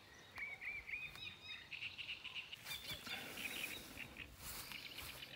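Small birds chirping and singing in quick repeated notes, with a few brief noises about halfway through and near the end.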